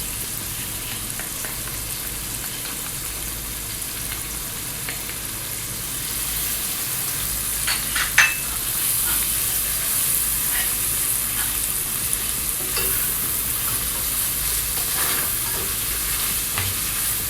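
Sautéing onion, garlic, carrot and tomato paste sizzling in hot oil in a pan while a utensil stirs them, scraping and clinking against the pan. The sizzle grows louder about six seconds in, and the sharpest scrape comes a little past eight seconds.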